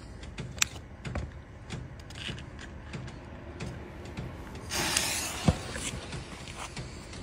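Clicks of a handheld lighter being struck. About five seconds in comes a hiss lasting about a second, then a single sharp metal knock.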